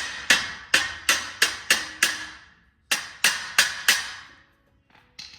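Hammer blows on the stuck rear wheel of a 1948 Diamond T truck, struck to free it: about three ringing strikes a second, a short pause after two seconds, then four more. A faint knock follows near the end.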